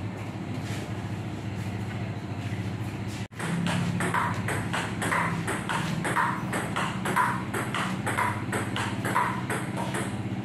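Table tennis being played: ping-pong balls clicking off tables and paddles in rallies, several hits a second. After a brief dropout about three seconds in the hits come louder, with a stronger ping roughly once a second.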